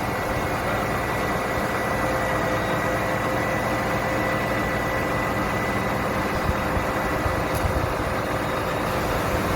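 Mobile crane's diesel engine running steadily, with a thin steady high whine over the low engine noise.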